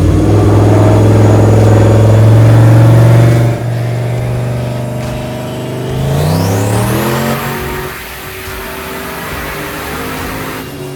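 Turbocharged 6.0-litre Chevy V8 running hard at high revs on a chassis dyno, dropping off sharply after about three and a half seconds. About six seconds in it revs up again with a high turbo whistle rising in pitch, which then holds steady as the engine settles.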